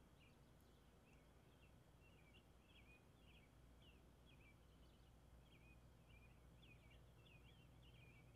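Faint chirping of small birds: short, quick notes repeating irregularly, over a low steady hum.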